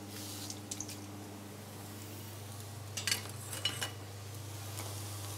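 Vegetables sizzling in a pan on a gas range, over a steady low hum. A few clicks just under a second in, then a cluster of clinks and scrapes of utensils against pans and plates about three seconds in.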